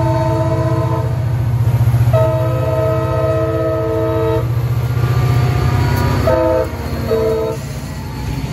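CSX diesel freight locomotive sounding its multi-note air horn: one blast ends about a second in, a long blast follows, then two short blasts near the end. Under the horn the diesel engine throbs steadily as the train approaches and passes close by.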